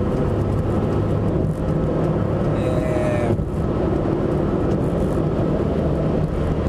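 Car cabin noise while driving on a highway: a steady engine hum with tyre and road noise, heard from inside the car.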